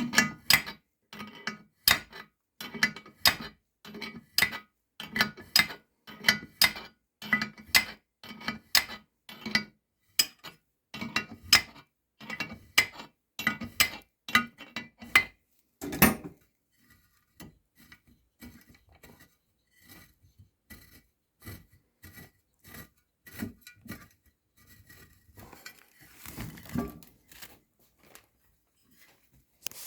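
Metal tools striking an outboard motor's gear case: sharp, evenly spaced clinks about one and a half times a second, ending after about sixteen seconds in one harder knock, then only faint scattered ticks and a short rustle near the end.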